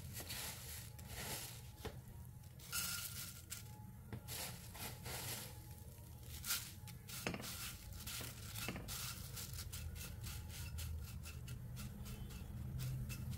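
Dry flattened rice (poha) flakes poured into a stainless steel kadai and then stirred and spread by hand: a crisp rustling and crackling of the flakes against the metal, in repeated short bursts.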